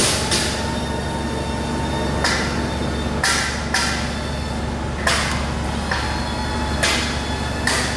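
Okuma Howa milling machine running on its hydraulic system: a steady motor and pump hum, broken by short hissing surges every second or so.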